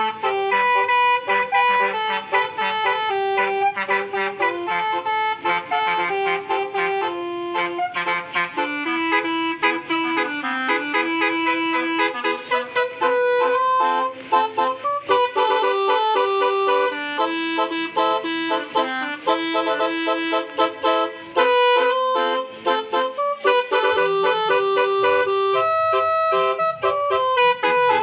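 A truck's basuri telolet musical air horn playing a tune: a long run of loud held notes stepping up and down in pitch, with brief gaps between many of them.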